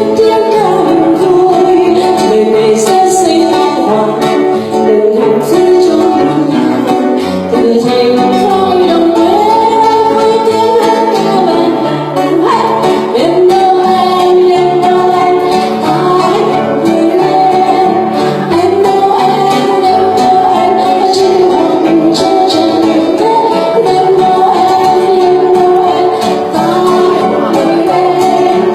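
Music from a Christmas song recording: a melody line over a steady, rhythmic plucked-string accompaniment.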